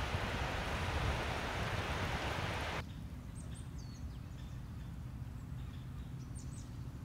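Wind noise that cuts off abruptly about three seconds in. A quieter low rumble follows, with a few high chirps of small birds.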